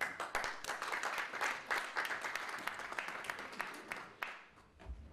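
Audience applauding, a dense patter of hand claps that dies away after about four seconds.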